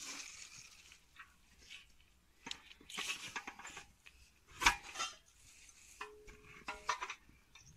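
Pool frame poles and their plastic T-joints clicking and knocking together as they are fitted, with rustling of the vinyl pool liner; one sharp knock a little past the middle is the loudest.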